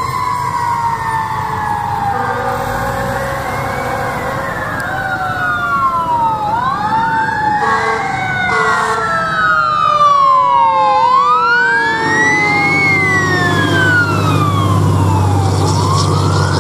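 Fire ladder truck's siren wailing, slowly rising and falling in pitch, with a few short horn blasts about eight seconds in. The truck's engine rumble grows loud near the end as it drives past.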